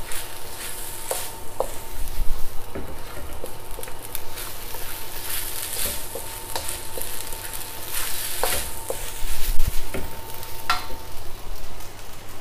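Fried rice sizzling in a hot wok, stirred and tossed with a wooden spatula that scrapes and knocks against the pan.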